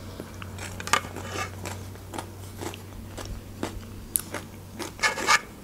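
Close-miked eating of Danissimo yogurt mixed with its little crunchy balls: wet chewing with a string of short crunchy clicks and crackles.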